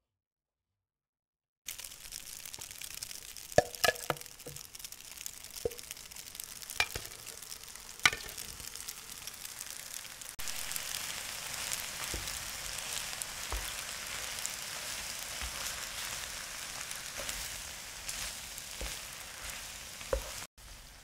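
After a second and a half of silence, food sizzles steadily in a frying pan, with a few sharp knocks of a utensil against the pan as it is stirred. The sizzle gets louder about halfway through.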